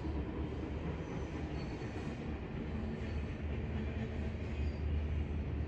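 Ohio Central freight train rolling past, a steady low rumble of its cars on the rails.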